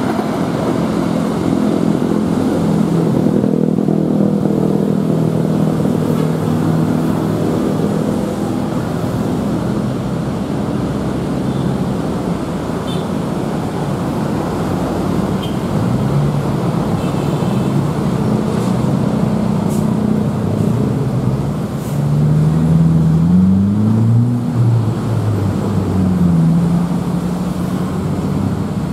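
Steady traffic and engine noise, with an engine note that rises and then falls in pitch about three quarters of the way through.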